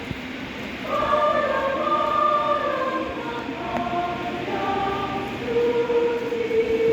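Church choir singing, several voices holding long notes together; the singing swells louder about a second in.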